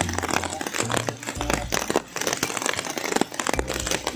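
Plastic wrapped around the recording phone, crinkling and crackling close to the microphone: a dense, continuous crackle.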